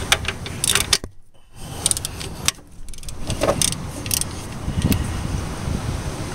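Ratchet wrench clicking in short runs, with metal clinks and rustling, as it turns a bolt on the alternator mount.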